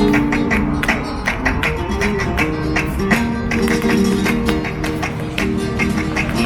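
Instrumental passage of Latin American folk music without singing: a held melody over a steady beat of percussive strikes.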